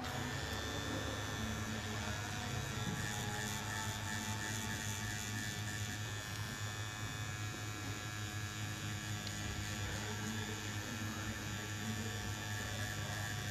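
Cartridge tattoo pen machine running with a steady electric hum as its needle works ink into skin.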